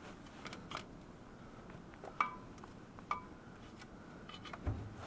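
Light metallic clinks and taps of a hand tool and parts against a new clutch pressure plate as it is fitted to the flywheel, with two sharper ringing clinks about two and three seconds in.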